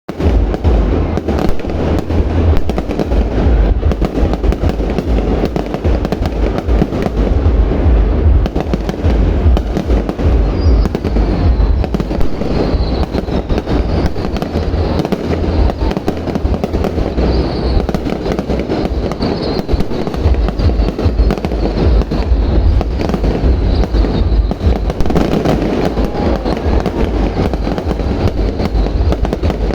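Large fireworks display in full barrage: a continuous, dense run of deep booms and crackling bursts with no pause.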